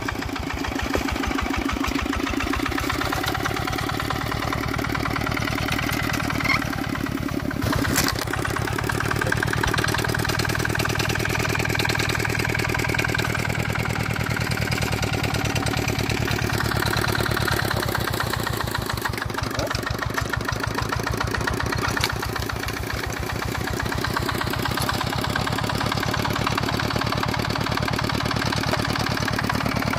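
Single-cylinder diesel engine of a Dongfeng walking hand tractor running steadily, with a fast, even chug of firing pulses. There is one sharp click about eight seconds in.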